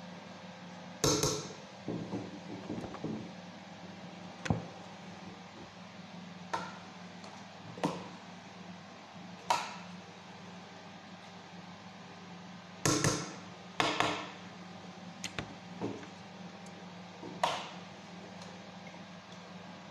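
Metal spoon clinking against the rim of a stainless steel cooking pot while food is scooped out and portioned, about ten sharp knocks spread irregularly with two coming close together past the middle. A steady low hum runs underneath.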